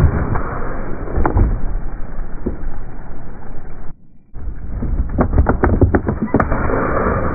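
Ford Raptor pickup's tyre rolling over a crushed plastic soda bottle and a pine cone on asphalt, a quick run of crackling crunches and pops about five seconds in. Before that there is the low steady noise of the truck, cut by a brief drop-out about four seconds in.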